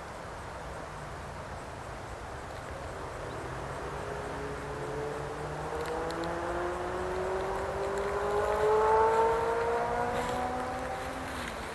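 A motor vehicle engine accelerating, its pitch rising steadily over several seconds, loudest about nine seconds in and then fading.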